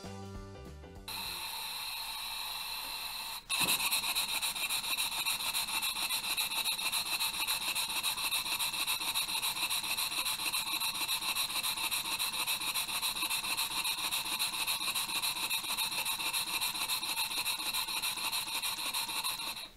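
Stuart Models 10H single-cylinder mill engine running, fed through a hose: a steady hiss from the exhaust with a few whistling pitches and a fast, even pulse. It starts about a second in, breaks off for a moment, and comes back louder about three and a half seconds in.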